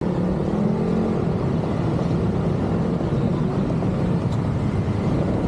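Motorcycle engine running steadily while riding slowly in traffic, with road and wind noise.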